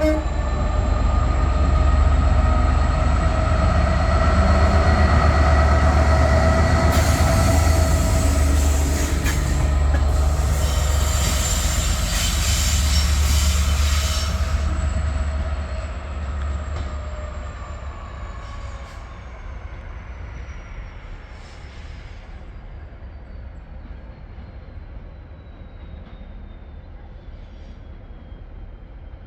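A train running past, with a heavy low rumble and several steady ringing tones that slowly sink in pitch. A hissing rush of wheel noise comes in about 7 seconds in and stops at about 14 seconds. After that the sound gradually fades away as the train recedes.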